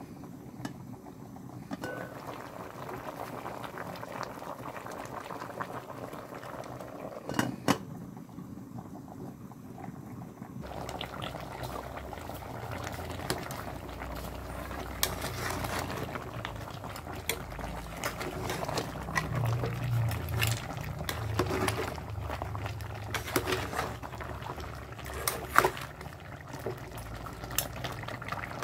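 Pork broth boiling hard in an aluminium pot, with a steady bubbling, while a metal utensil stirs the meat and clinks sharply against the pot now and then.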